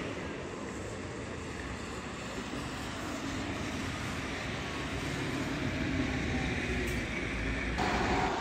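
Articulated city bus driving past close by, its engine and tyre noise swelling as it passes. Near the end a low-floor tram arrives, adding a steady whine.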